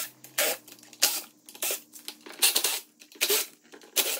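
Hand-tool work on an automatic transmission case: about ten short scraping clicks in quick, uneven succession.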